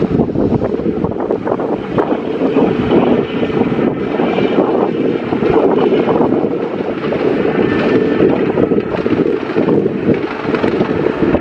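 Kangra Valley Railway narrow-gauge diesel train running past, a steady, loud noise of the locomotive and coaches on the move.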